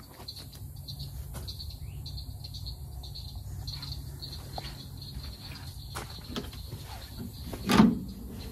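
Insects chirping steadily in a high, pulsing drone over a low hum, with a single short thump near the end.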